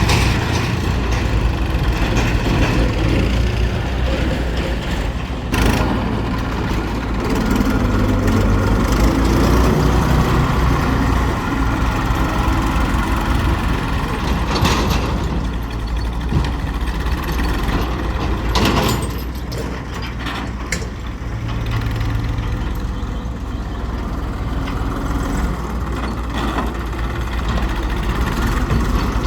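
Heavy diesel engine running steadily at a low rumble, with a few short sharp knocks over it.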